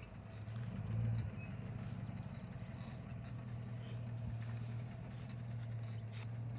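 Chevrolet Suburban engine running at low speed, a steady low drone that swells briefly about a second in, as it slowly tows a heavy chicken coop on shed dolly wheels.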